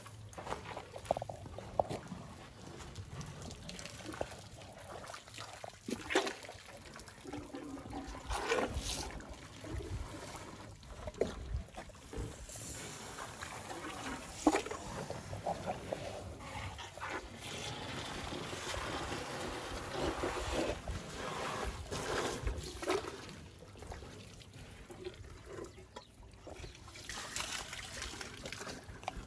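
Water trickling and splashing as African elephants drink at the water's edge, drawing water up their trunks and letting it dribble and pour back, with irregular splashes.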